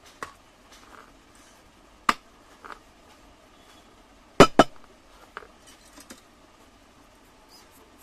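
Scattered light clicks and metallic taps from soldering the coil lead wires on a ceiling fan's stator, with a soldering iron and wires knocking against the metal. The loudest is a quick double tap about four and a half seconds in.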